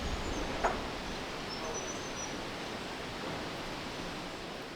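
Steady outdoor background hiss with a single click just under a second in and a few faint high chirps around two seconds in.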